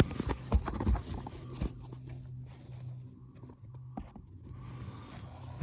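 Handling noise: several sharp knocks and rustles in the first couple of seconds, then a low steady hum.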